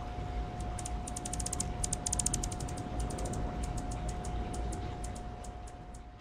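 Fast runs of short, high-pitched ticks, several to a dozen a second, densest about two seconds in and thinning out later, over a steady thin tone and a low rumble.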